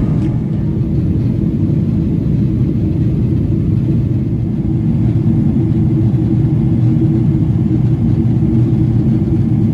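Steady low rumble inside the cabin of a Boeing 777-200ER in descent: engine and airflow noise.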